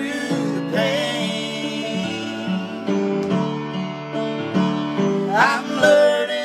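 Grand piano playing a slow gospel ballad accompaniment, with sung phrases from the duet near the start and again near the end.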